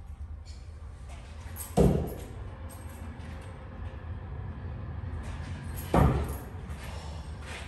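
Two steel throwing knives striking and sticking into wooden log targets with a sharp thunk, about four seconds apart, over a steady low hum.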